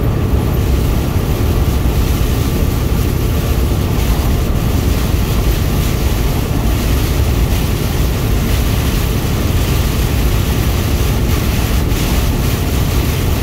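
Heavy rain hitting the windshield and body of a moving vehicle, mixed with steady road and wind noise, heard from inside the cab.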